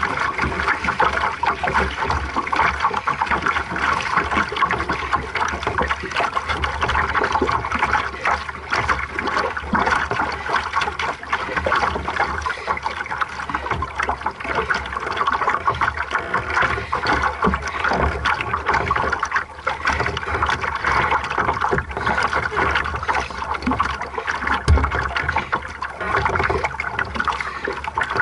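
Lake water rushing, splashing and gurgling along the hull of a small aqu@muse sailing dinghy under way, a steady, unbroken wash.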